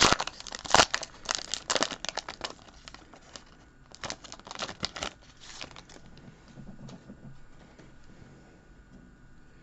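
Foil trading card pack wrapper being torn open and crinkled, in crackly bursts over the first two seconds or so and again about four to five seconds in, then only faint handling.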